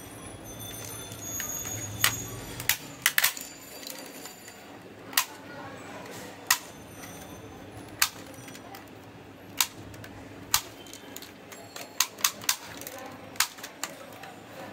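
Sharp plastic clicks and snaps from a toy lever-action shotgun being handled, about fifteen irregularly spaced clicks, some in quick pairs or triplets, over a faint steady hum.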